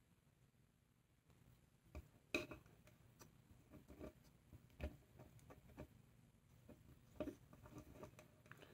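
Faint, scattered clicks and taps of plastic as a Star Wars Black Series action figure is handled and its joints are posed, about half a dozen small clicks with the sharpest one early on.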